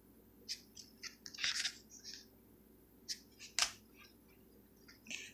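Hard plastic trading-card holders clicking and sliding against each other as cards are handled and taken off a stack: a scattering of soft clicks and short scrapes, the sharpest about three and a half seconds in.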